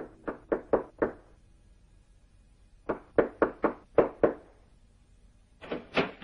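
A fist knocking on a panelled door in three bursts of quick knocks with pauses between: about five, then about six, then two or three more near the end.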